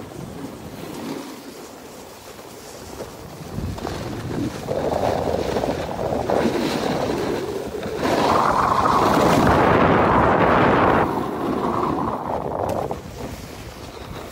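Snowboard sliding and scraping over hard-packed snow, with wind rushing over the phone's microphone. It grows louder as the ride picks up speed about four seconds in, is loudest for a few seconds, and eases off near the end.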